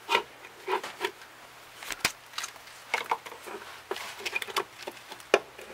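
Scattered light clicks and knocks of car parts being handled as a clutch master cylinder is pushed into its mounting, with one sharper knock about two seconds in.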